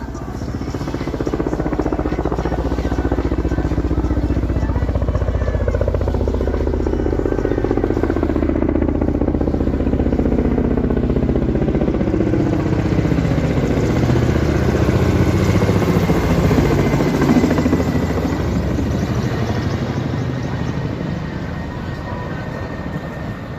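Helicopter flying past, its rapid rotor beat growing louder over the first few seconds, loudest a little past the middle, then fading as its pitch drops.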